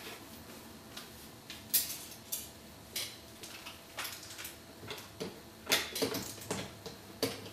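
Scattered light clicks and knocks of bassoon joints and metal keywork being handled, at irregular intervals.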